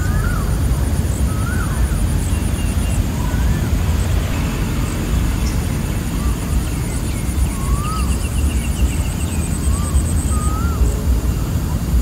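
Evening swamp chorus: birds giving short whistled calls that rise and fall in pitch, about one a second, and insects trilling in high pulsing runs that stop and start. A brief rapid trill comes about two-thirds of the way in. Beneath it all runs a steady low rumble, the loudest sound.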